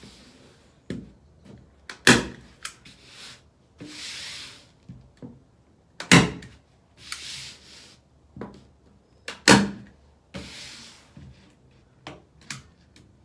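Staple gun firing staples through canvas into a plywood board: three sharp shots about two, six and nine and a half seconds in, with softer knocks and rustling between.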